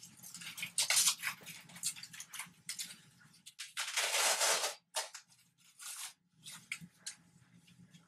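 A blood pressure cuff being wrapped around an upper arm and fastened: fabric rustling and Velcro rasping in short scratchy strokes, with a longer, louder rasp about four seconds in.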